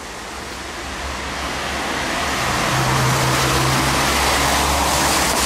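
Road vehicle noise: a rushing sound with a low hum that builds up over the first two or three seconds and then holds steady.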